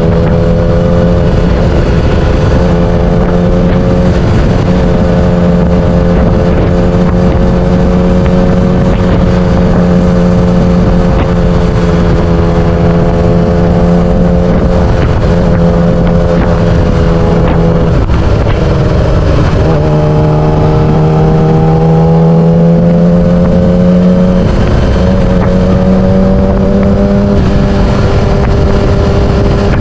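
Yamaha R6 600cc inline-four engine running at steady revs while riding, with wind noise on the camera microphone. About two-thirds of the way through the pitch shifts and then slowly climbs.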